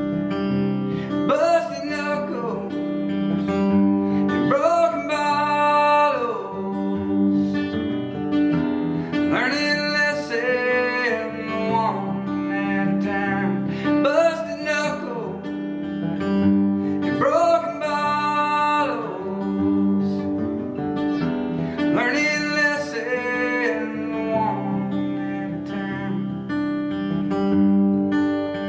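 Steel-string acoustic guitar played steadily, with a wordless vocal line rising and falling over it in phrases about every four seconds.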